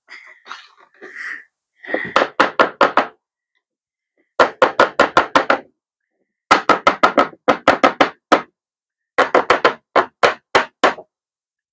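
Small glass baking containers of brownie batter being knocked in quick runs, several sharp knocks a second in four bursts.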